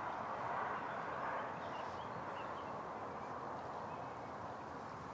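Steady rushing of a fast-flowing river.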